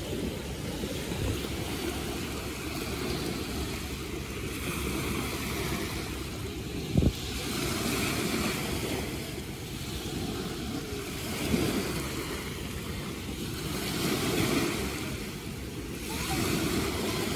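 Wind buffeting the microphone with a low rumble, over surf washing in and out in swells every few seconds, and one sharp knock about seven seconds in.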